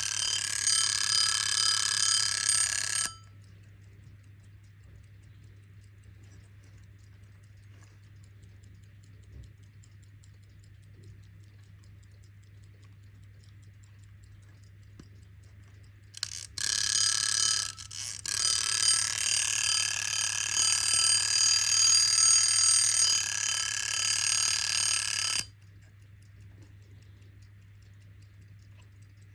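Vintage Cyma alarm clock's bell ringing loud and fast. It cuts off about three seconds in, leaving the clock ticking faintly. About sixteen seconds in the alarm stutters back on in short bursts, then rings steadily for about seven seconds and stops suddenly.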